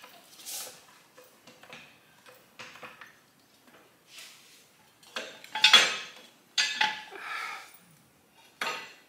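Steel parts being handled on a buggy's rear frame: a string of short metal clanks and scrapes, loudest a little past the middle.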